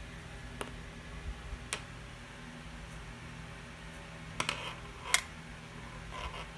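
Scattered light clicks and taps of a pencil knocking on a desk as it is moved and picked up: a few small clicks in the first two seconds, a cluster about four and a half seconds in, and a single sharp click, the loudest, just after five seconds.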